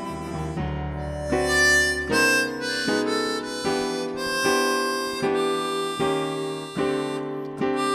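Harmonica playing a slow melody of held notes that change about once a second, with a low held note beneath them in the first two seconds.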